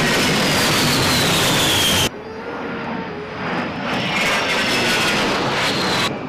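A-10 Thunderbolt II's twin turbofan engines whining as the jet flies overhead: a loud rush with a high whine falling in pitch, then an abrupt cut about two seconds in to a quieter, steady whine that cuts off again near the end.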